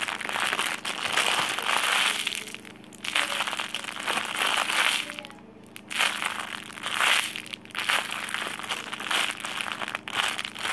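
Plastic packaging crinkling and crushing as it is handled, in several bouts of a second or two with short pauses between.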